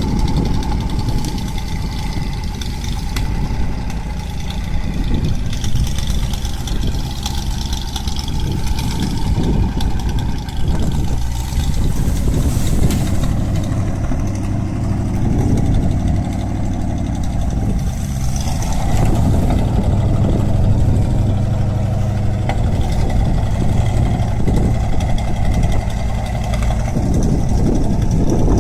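Wood chipper's engine running steadily at a low, even pitch, a little louder in the second half.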